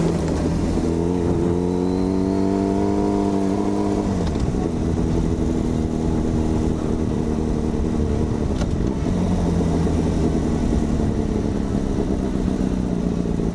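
Yamaha FZ6's 600 cc inline-four engine, fitted with an aftermarket dual carbon exhaust, running as the motorcycle is ridden. Its pitch climbs gently for about three seconds, drops suddenly about four seconds in, then holds steady.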